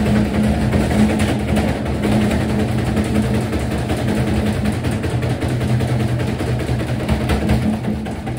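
Gorenje washing machine running, its motor giving a steady hum over a continuous rumble, with a few faint clicks.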